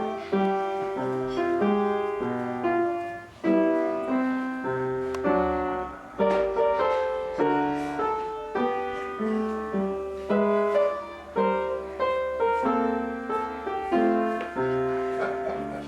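Piano music: a melody of single notes over chords at an even pace, each note struck and dying away.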